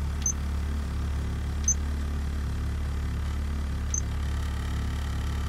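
Three short, high-pitched beeps from the Chrysler Electronic Navigator trip computer as its buttons are pressed, the middle one loudest, over the steady low hum of the car's 2.2 turbo four-cylinder engine idling.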